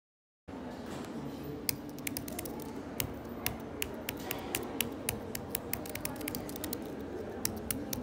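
Apple Magic Keyboard with Touch ID being typed on: quick, irregular clicks of its low-profile scissor-switch keys, several a second, over steady background noise that starts about half a second in.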